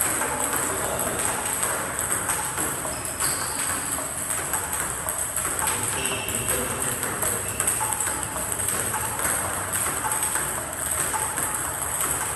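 Table tennis balls being struck in a rapid multi-ball drill: repeated sharp clicks of celluloid balls off rubber paddles and the hard table top, one after another.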